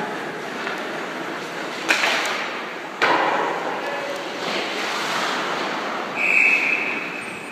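Game noise in a large hall: two sharp knocks about a second apart, then a short, high whistle blast near the end.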